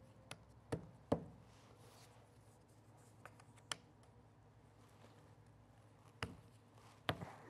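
Cardboard board-game puzzle pieces being handled and pressed into place on a table: a few light taps and knocks, the loudest about a second in, with soft rubbing between.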